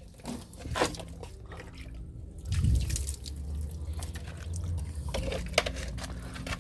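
Water dripping and splashing onto a car's suspension parts as they are wetted down for washing, with scattered small knocks and a low rumble that comes in about two and a half seconds in.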